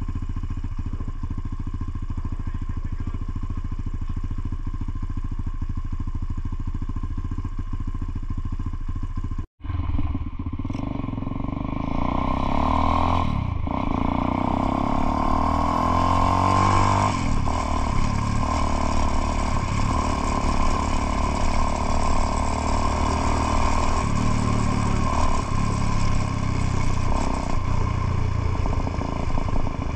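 Motorcycle engine running steadily. After a brief break about a third of the way in, it comes back louder, its note rising and falling as the bike rides on.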